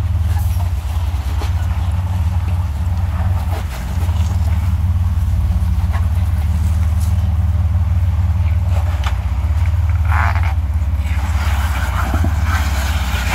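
Off-road vehicle's engine running at low revs while crawling over rocks: a steady low drone with a few faint clicks and knocks.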